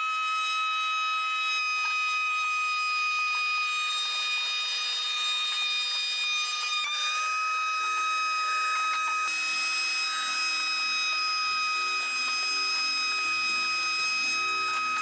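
Shop vac motor running with a steady high whine while vacuuming up leaves, its pitch dipping briefly about seven seconds in. Background music with keyboard notes comes in about eight seconds in.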